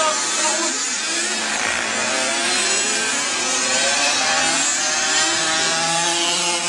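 Remote-control model motorcycles racing, their motors giving a high whine that rises and falls in pitch as they speed up and slow down, over a steady hiss.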